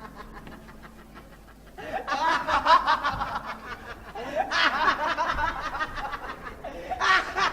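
A group of people laughing, starting about two seconds in and rising and falling in waves.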